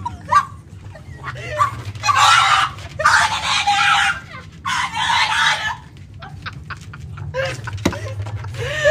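A dog letting out harsh, squawking screeches, four bursts each under a second long, over a steady low hum.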